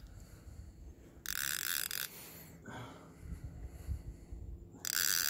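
A conventional fishing reel's drag buzzing twice as a hooked catfish pulls line off against it, each run just under a second, under a low rumble.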